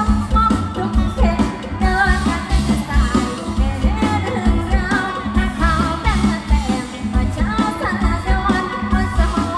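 Thai mor lam band music: a woman sings an ornamented, wavering melody over a steady, driving bass and drum beat.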